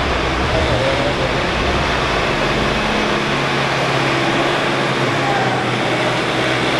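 Diesel engine idling steadily, a constant low drone under a loud even rumble with no change in speed.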